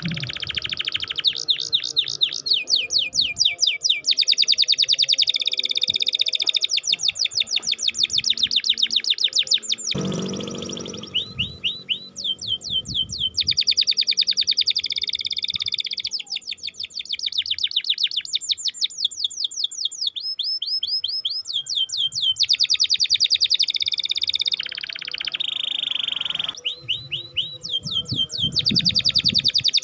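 Domestic canary singing long runs of rapid repeated chirping notes, rolling trills a few seconds each with short breaks between.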